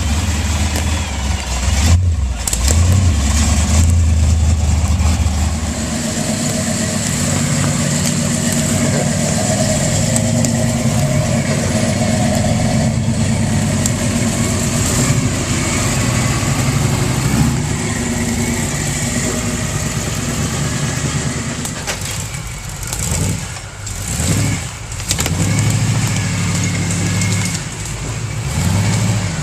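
4x4 truck engine running on an off-road climb: a low rumble for the first few seconds, then a higher, rising and falling note as the throttle is worked, with two brief drops in the engine sound near the end.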